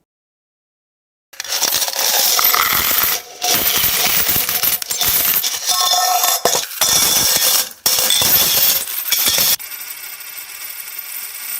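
Many coins falling and clinking together in a dense metallic jingle, starting about a second in with two brief breaks, then thinning to a quieter jingle near the end.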